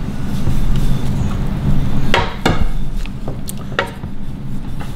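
Kitchen knife scoring the skin of a raw pork belly in a stainless steel pan, the blade scraping and knocking against the pan's metal several times in the second half, over a steady low hum.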